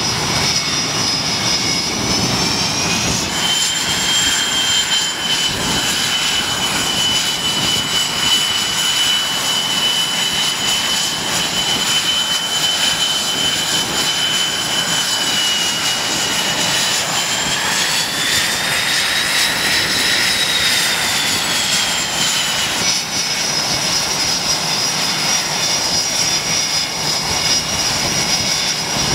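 F/A-18 Hornet twin jet engines running on a carrier flight deck at low power, a loud steady high-pitched whine. The pitch steps up about three seconds in, climbs and falls again past the middle, then settles back as the jet is positioned and hooked to the catapult before launch.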